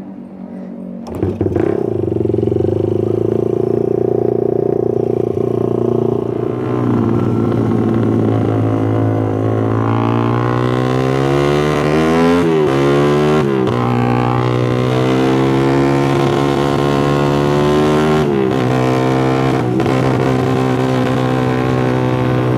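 Suzuki Satria F150's ported, hot-cammed single-cylinder four-stroke engine, loud, freshly push-started and held at a fast idle. It picks up about a second in, and the revs are blipped up and down a few times around the middle.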